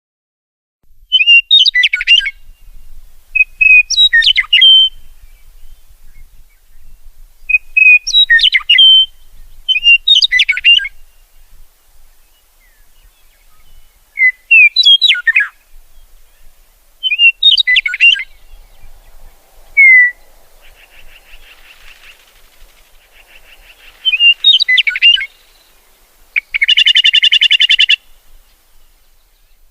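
Songbird singing short, complex chirped phrases, repeated every two to three seconds, beginning about a second in. Near the end comes a loud, rapid buzzy trill.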